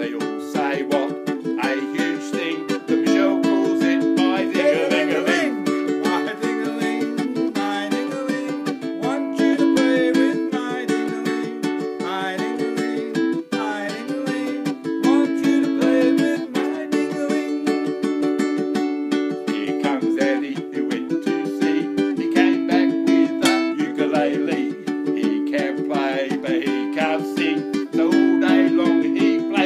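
Ukulele strummed in a steady rhythm of chords, with men's voices singing a song along with it.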